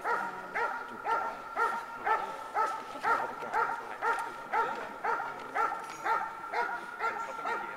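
A dog barking steadily, about two barks a second, over a steady high tone.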